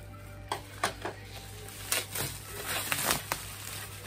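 Bubble-wrap packaging rustling and crinkling in a few sharp crackles as it is pulled off a cardboard box.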